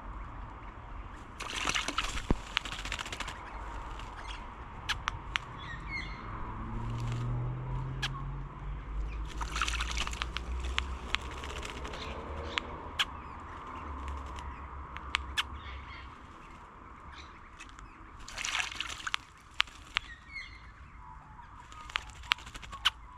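Wattlebirds splashing and flapping their wings in a bird bath, in four bouts of about a second each, with scattered drips and clicks and a few faint chirps between them. A low drone rises and fades in the middle.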